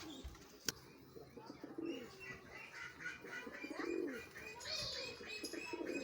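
Domestic pigeons cooing in low bursts, with a rapid run of high chirps, about five a second, from about two seconds in until near the end. A single sharp click comes just under a second in.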